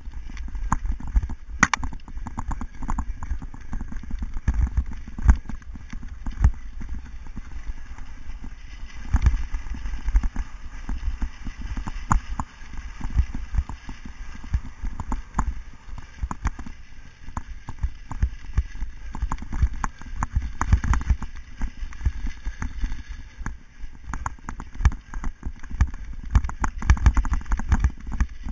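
Cyclocross bike ridden fast over bumpy grass: a constant, irregular clatter of sharp knocks and rattles as the bike and its mounted camera are jolted, over a low rumble.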